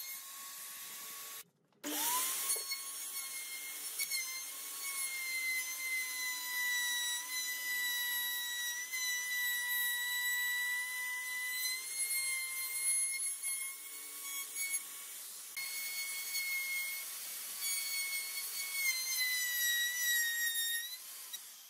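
Dong Cheng DMR02-12 electric plunge router running and cutting along the edge of a wooden frame: a steady high whine that sags slightly in pitch as the bit takes load. The sound drops out briefly about a second and a half in, and the pitch falls away just before the end.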